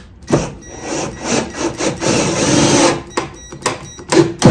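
Cordless drill-driver driving a screw through a drywall patch into a wooden backer bar: the motor runs as the screw grinds its way in for about three seconds, followed by several short clicks and knocks near the end.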